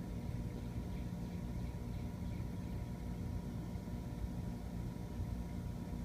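Trane air-conditioning package unit running under test, a steady mechanical hum with several constant tones over a low rumble.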